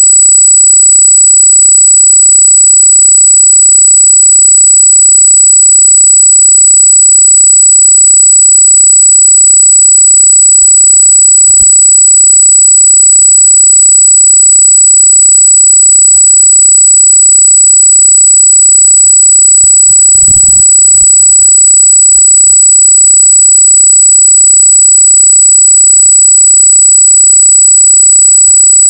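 Continuous high-pitched electronic squeal: one steady tone with evenly spaced overtones, very loud and unchanging. It is an unexplained noise in the trail-camera recording. Faint low rumbles lie beneath it, the strongest about twenty seconds in.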